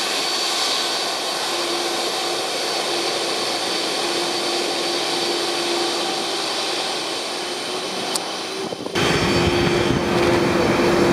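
Boeing 747-400's four jet engines running steadily as the airliner turns onto the runway, a roar with a held hum and a high whine. About nine seconds in, the sound changes abruptly to a deeper, rumbling roar as the engines' blast sweeps over the beach behind the runway.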